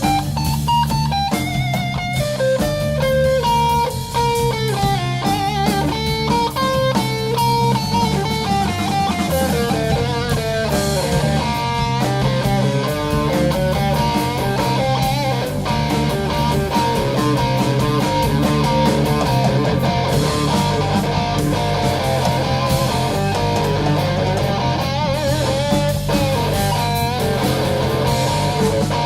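Live band music: an electric guitar plays a melodic lead line over bass guitar and drums.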